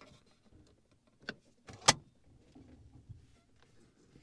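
Phillips screwdriver driving a screw into the plastic overhead console of a car, with scattered small knocks and sharp clicks of plastic and tool. The loudest click comes about two seconds in.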